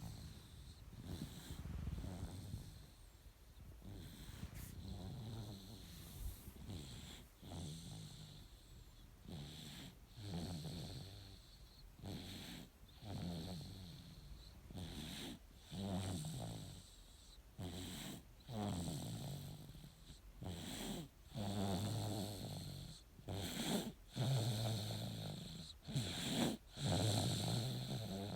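A nine-month-old baby snoring in his sleep: a low snore on each breath, about every one and a half to two seconds, growing louder over the last few seconds.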